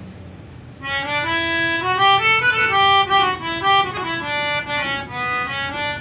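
Brothers 37-key melodica (pianica) played by mouth, a reedy melody of short held notes that starts about a second in.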